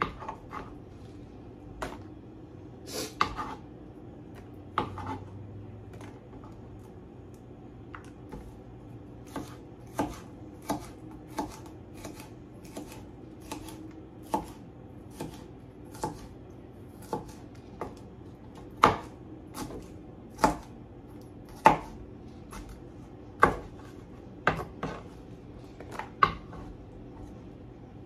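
Kitchen knife chopping bell peppers on a plastic cutting board: irregular sharp knocks of the blade striking the board, about one every half second to a second, a few much louder than the rest.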